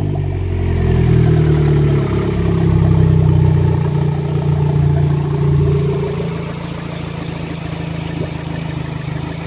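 Turbocharged Toyota 1ZZ four-cylinder engine of an MR2 Spyder running steadily just after being revved, louder at first and then settling to a quieter, even tick-over about six seconds in.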